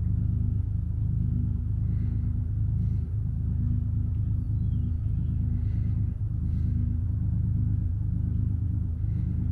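A steady low droning hum of a running engine or motor, with brief small dips now and then.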